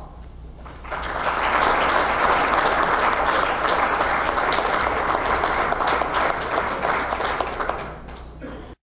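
An audience applauding, the clapping swelling about a second in and dying away near the end before cutting off suddenly.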